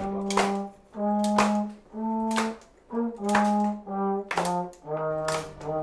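Brass instruments playing a slow line of low held notes, about one a second. A sharp percussion stroke marks the start of most notes.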